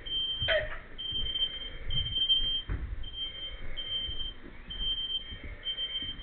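Smoke alarm sounding a repeated high-pitched beep, about one a second, set off by smoke from food burning on a stove. Low knocks and rumbling from movement sound beneath it.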